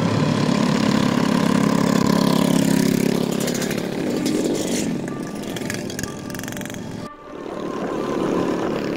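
Engines of a group of Vespa scooters running as they ride past, a steady hum loudest in the first few seconds, then rougher mixed engine noise. The sound drops out briefly about seven seconds in and returns as engine noise from among the riding scooters.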